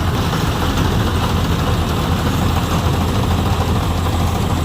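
Tractor engine running steadily to drive a tractor-mounted paddy harvester, a constant low hum with no change in speed.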